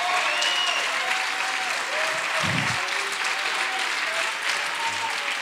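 Congregation applauding steadily, with a few voices calling out over the clapping; it eases slightly near the end.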